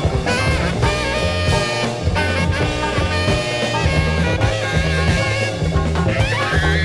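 Jazz recording playing: a full band with horns over a repeating bass line and drum kit.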